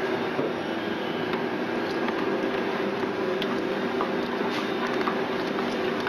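Steady machine hum with a few faint clicks over it.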